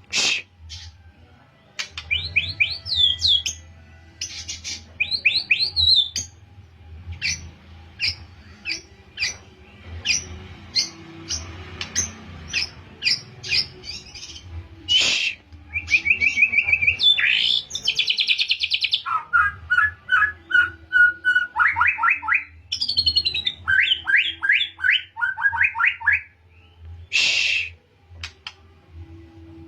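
Young white-rumped shama (murai batu) singing, practising canary-style rapid trills. Fast runs of repeated notes alternate with sharp single chips and a few short harsh bursts.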